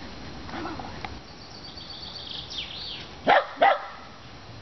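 Shetland sheepdog barking twice in quick succession, a little over three seconds in.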